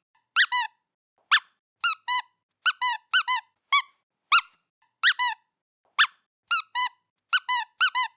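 Squeaky toy squeaked over and over as a cat plays with it. The squeaks come at an irregular pace, often in pairs: a brief higher squeak followed by a lower one.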